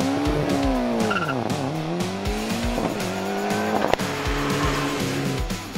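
Ford Escort RS Cosworth's turbocharged four-cylinder engine revving as the car drives. Its pitch falls over the first second and a half, climbs steadily, then drops suddenly about four seconds in as it changes gear, and holds steady after that.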